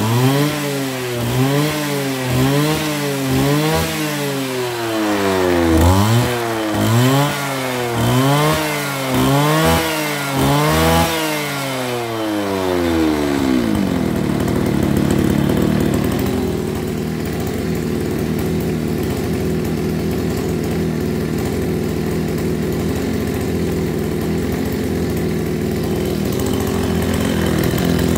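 Kawasaki TJ27 27cc two-stroke brush cutter engine revved up and down about once a second, a dozen or so times. About 13 seconds in it drops to a steady idle. It runs very smoothly.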